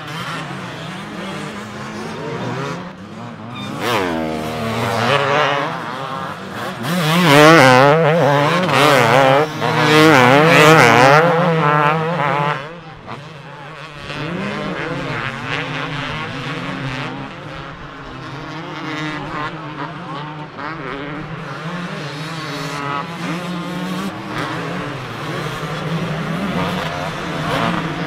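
Several two-stroke motocross bikes racing, their engines revving up and dropping off again and again as the riders work the throttle through the turns. Loudest from about seven to twelve seconds in, as the bikes pass close.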